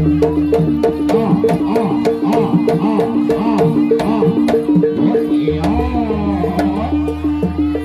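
Jaranan (kuda kepang) dance music: hand drums with swooping, gliding pitches over a fast repeating two-note pattern of about four notes a second, with sharp percussion strikes throughout.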